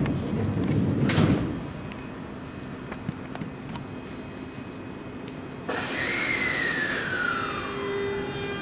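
Seibu 6000 series electric train departing: its doors slide shut about a second in, and after a few quieter seconds the Hitachi GTO-VVVF traction inverter switches on suddenly with a whine that falls in pitch as the train starts to pull away. Near the end a lower tone begins to rise.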